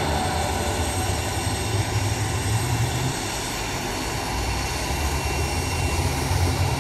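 Twin turboprop engines of a CAL FIRE S-2T air tanker running steadily as it taxis, a steady whine over a low drone.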